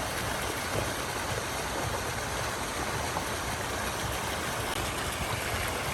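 Steady rushing of flowing water, an even noise that holds at one level throughout.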